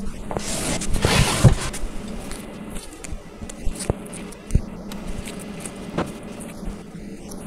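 Hands fitting peel-off screw-cover stickers onto a storage unit's panels: a rustling scrape lasting about a second near the start, then a few light clicks and taps as stickers are peeled from their sheet and pressed on.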